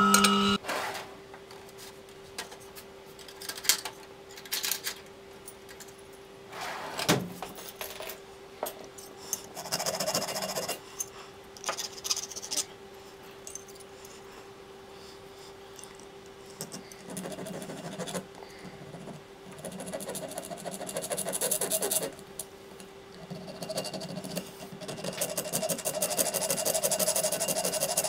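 Small metal tools and parts clinking and knocking on a workbench, then a flat hand file scraping back and forth across a small metal piece held on a bench stake, in several runs of quick strokes through the second half. A steady low hum runs underneath.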